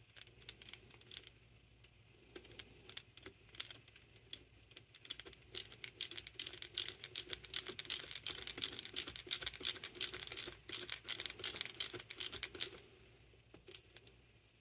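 A nut driver running a small hex-headed bolt into a Carter Thermoquad carburetor, giving rapid metallic clicks several times a second that stop shortly before the end.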